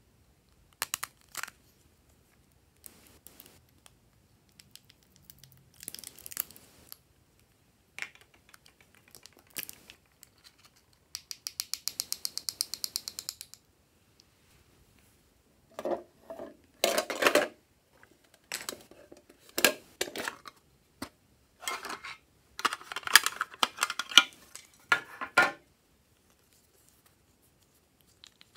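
Plastic craft containers and caps handled close to the microphone, with scattered clicks and snaps as lids open. About eleven seconds in comes a fast, even rattle of about ten taps a second as glitter is shaken out. Later there are louder clusters of clicking and scraping as a glitter glue pen is uncapped and handled.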